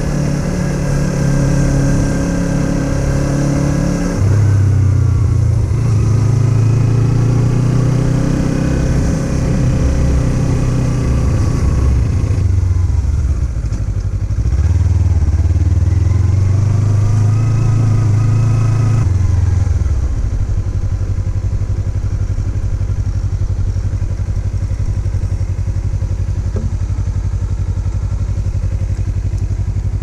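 Kawasaki Z300's parallel-twin engine ridden slowly uphill, its note rising and falling with the throttle twice, then settling to a steady idle about twenty seconds in.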